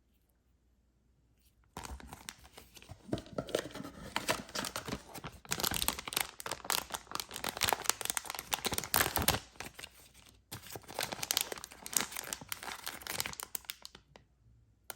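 Candy packaging being torn open and crinkled by hand: dense crackling and rustling that starts about two seconds in, pauses briefly near the two-thirds mark, and stops shortly before the end.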